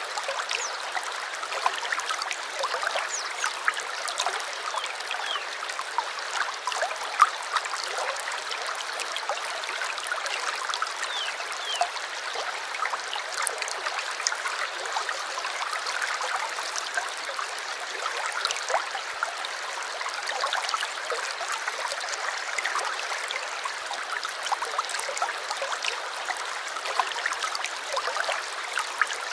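Small stream babbling and trickling, a steady rush of water dotted with many quick little splashes and gurgles.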